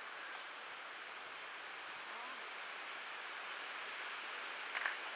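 Steady background hiss, with a short, sharp click-like sound near the end.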